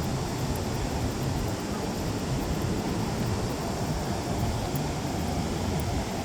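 Steady rushing noise of ocean surf breaking on the beach, with a low rumble.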